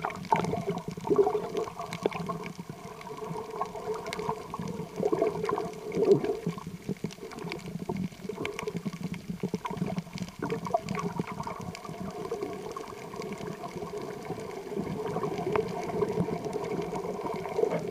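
Underwater sound picked up by an action camera in its waterproof housing: a continuous muffled sloshing and rushing of water with scattered faint clicks.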